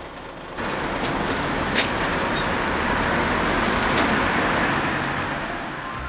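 City bus running at the kerb: a loud, even rushing noise that starts suddenly about half a second in, with a few sharp clicks, and fades toward the end.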